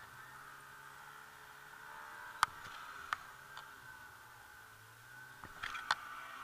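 Snowmobile engine idling faintly as a low steady hum, with several sharp clicks close to the camera: one about two and a half seconds in, another near three seconds, and a short cluster near the end.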